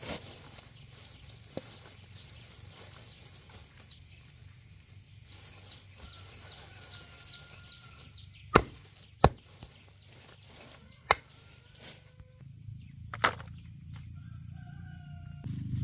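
Four sharp knocks or snaps in the second half, spaced one to two seconds apart, over a quiet background with a few faint short chirps.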